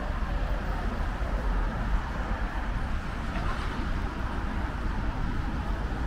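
Town road traffic: cars driving past steadily, a continuous rumble of engines and tyres with no single standout event.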